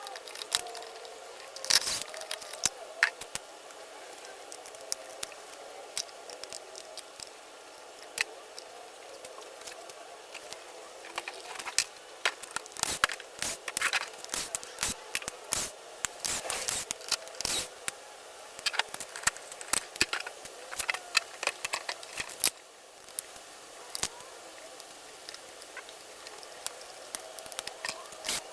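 Irregular clicks, taps and small clatters of hand tools, screws and plastic and metal parts as a 1/5-scale petrol RC truck is taken apart on a workbench, over a steady faint hum. The clicking is busiest in the middle of the stretch.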